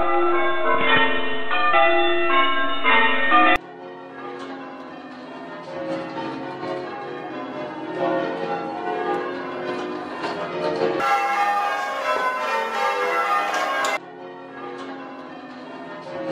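Church bells rung in changes by a band of ringers, the bells striking one after another in a steady tumbling sequence. The recording cuts abruptly to a quieter one about three and a half seconds in, and switches again twice later on.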